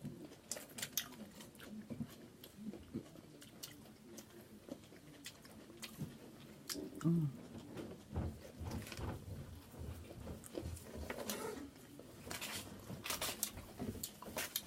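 A person eating close to the microphone: chewing and lip smacking, with scattered crisp clicks of biting through the food. The clicks come thicker near the end.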